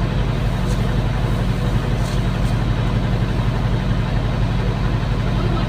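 Hydraulic excavator's diesel engine idling steadily, heard from inside the cab.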